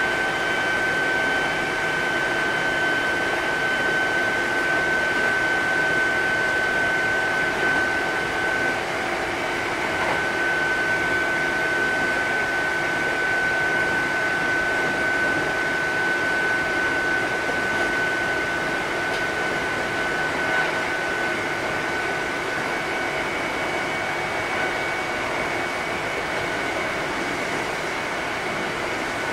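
Kintetsu 8000 series electric train running steadily between stations, heard from inside the passenger car: a steady rumble of running noise under a high whine that eases slightly lower in pitch.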